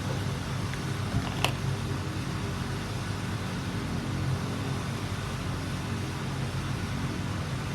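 Steady low background hum, with a single sharp click about a second and a half in.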